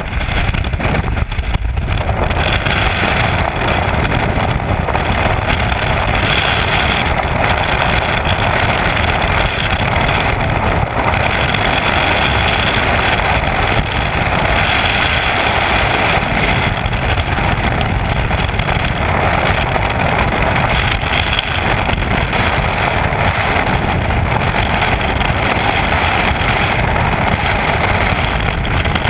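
Steady, loud rush of freefall wind blasting over a body-worn camera's microphone during a skydive.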